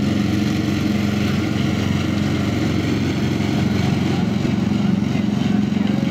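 Small engine of a diesel-outline miniature railway locomotive running steadily as it hauls a passenger train past.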